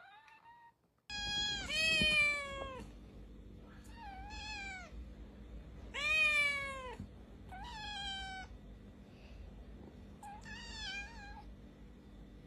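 A domestic cat meowing repeatedly: about six drawn-out calls, each sliding down in pitch at its end. The loudest calls come about two and six seconds in.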